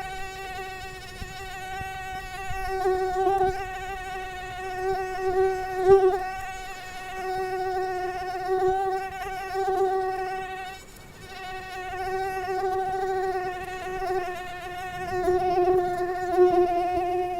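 Mosquito wing whine: a continuous high buzz that wavers slightly in pitch and swells and fades as the insect moves near and away from the microphone, thinning briefly about eleven seconds in.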